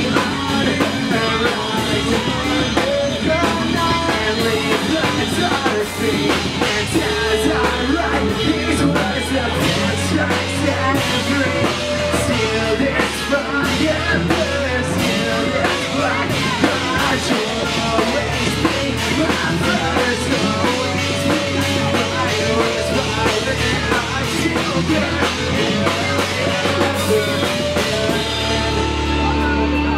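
Live pop-punk rock band playing loud: electric guitars, bass guitar and a drum kit with cymbals. Near the end the cymbals drop out.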